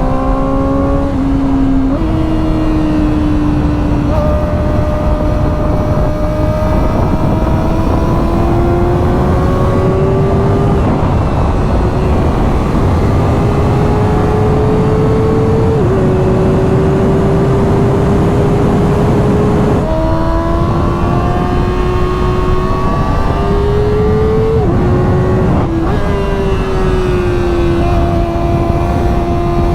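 Kawasaki ZX-4RR inline-four engine running through a Graves carbon slip-on exhaust while the bike is ridden. The engine note climbs slowly and drops sharply a few times, about two seconds in, around the middle and about two-thirds through, as the gears change.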